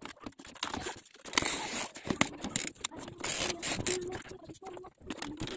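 Handling noise from a printer and its plastic and foam packing being moved on a table: irregular rustling, scraping and clicking, with denser crinkly rustles about a second in and again past the middle.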